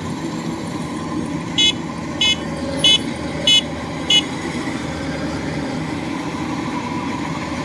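Kubota DC93 rice combine harvester's diesel engine running steadily as the machine crawls on its tracks through a muddy field. Five short high beeps, about 0.6 s apart, sound between about one and a half and four seconds in.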